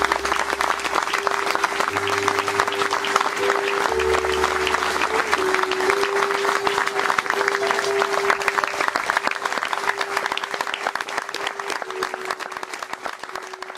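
Wedding guests applauding, a dense patter of many hands clapping over instrumental background music with held notes; the applause dies away over the last few seconds.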